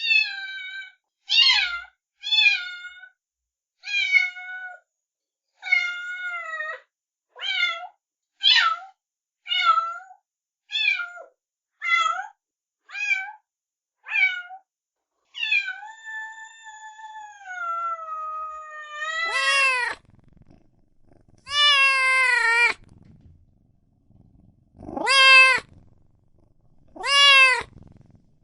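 Cat meowing over and over: short, high meows about one a second, then one long drawn-out meow. Near the end come four louder, lower meows.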